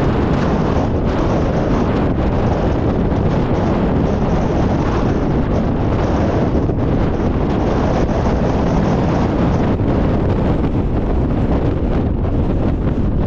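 Wind blowing across the microphone, a loud, steady rumble that never lets up.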